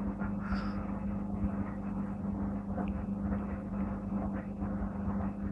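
Servis Gem M310 washing machine running a Cottons 95 wash: its motor turns the drum with a steady hum, over the churning noise of the bedding load.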